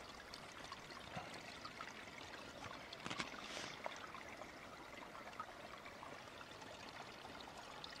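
Small woodland stream trickling, faint and steady.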